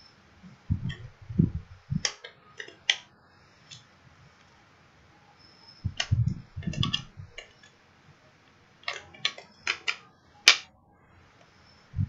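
Hard plastic clicking and handling noises as a folding spoon is pressed and worked against a thermos lid to try to snap it in place, with a few dull bumps about a second in and again around six seconds, and one sharp click near the end.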